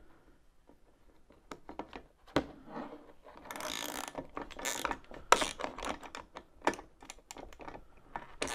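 Steel nut being run onto a bolt on a spreader's frame and hopper, a run of irregular small clicks and rattles, with a longer scraping rattle about halfway through. It starts after a second or so of quiet.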